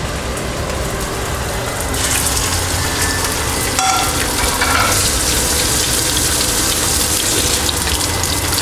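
Sesame-crusted tuna searing in hot sesame and avocado oil in a skillet: a steady sizzle that grows louder about two seconds in as the fish settles into the pan. A steady low hum from the range-hood vent fan runs underneath.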